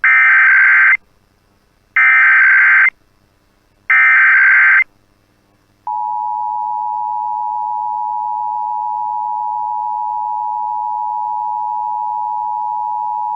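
Emergency Alert System test: three one-second bursts of SAME digital header tones a second apart, encoding a Required Monthly Test. About six seconds in, the EAS two-tone attention signal (853 and 960 Hz) starts and holds steady.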